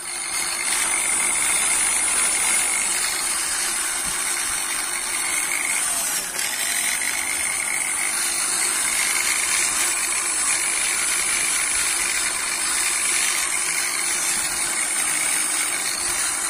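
Orion EP-6100 450 W rotary car polisher running with its pad spinning free in the air: a steady electric-motor whine over a high hiss. The whine dips briefly and recovers about six seconds in.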